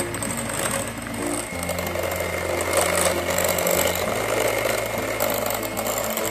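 Electric hand mixer running, its twin beaters turning through a thick mixture of cream and coconut in a glass bowl. Background music with sustained bass notes plays over it.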